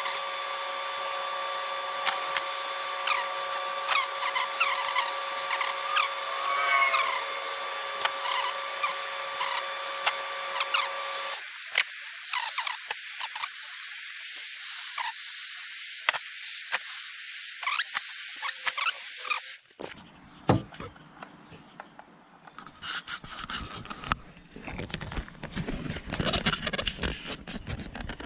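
Proxxon electric chisel, a small reciprocating power carver, running as it cuts detail into a wooden owl: a steady motor whine over a hiss, with rapid ticking of the blade against the wood. The whine's lower tones drop out about eleven seconds in, and the tool stops at about twenty seconds, leaving scattered handling knocks.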